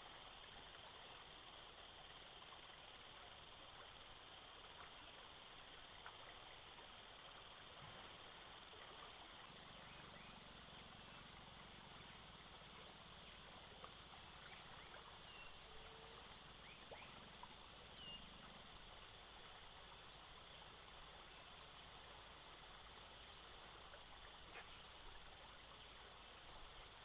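Steady high-pitched insect chorus of crickets or similar insects, made of several even, unbroken tones, with a few faint ticks.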